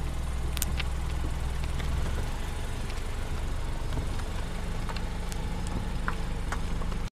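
Car engine and road noise inside the cabin: a steady low drone as the car slows, with scattered light clicks and rattles. The drone changes pitch about two seconds in, and the sound cuts off suddenly near the end.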